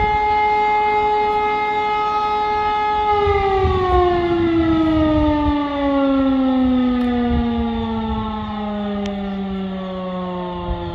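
Civil defence siren sounding the fire-brigade call-out alarm. It holds one steady tone, then about three seconds in begins winding down in a long, slow falling glide.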